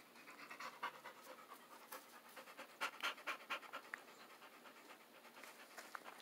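Faint, quick panting, a steady run of short breaths about three a second.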